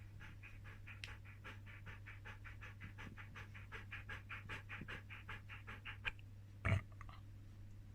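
Siberian husky panting fast and evenly, about four to five breaths a second. The panting stops about six seconds in, and a moment later comes one short, loud, low sound.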